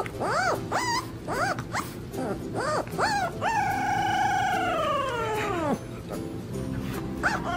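A young puppy howling: a run of short yelps that rise and fall in pitch, then one long howl of about two seconds that slides down at the end.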